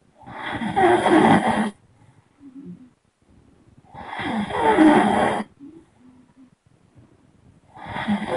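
A person snoring in long, loud snores about every four seconds: two full snores of about a second and a half each, and a third starting near the end, with short soft breaths between.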